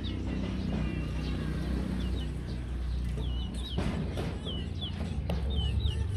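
Young chickens peeping and cheeping in short, high, rising-and-falling chirps, several in quick runs in the second half, over a steady low rumble with a couple of faint knocks.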